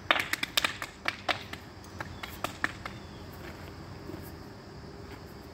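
Hand pats on a saddled horse's shoulder and body: a quick run of sharp pats in the first second and a half, then a few spaced-out ones, stopping a little under three seconds in.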